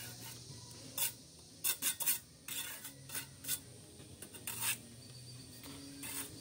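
Steel brick trowel scraping wet mortar off the joints of a freshly laid brick, in a series of short, irregular strokes.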